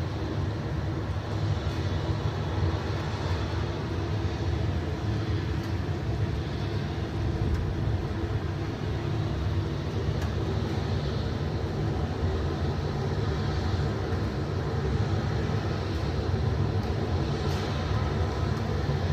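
The Centre Pompidou's four rooftop air-conditioning units running: a steady low drone with several held tones in it, unchanging throughout.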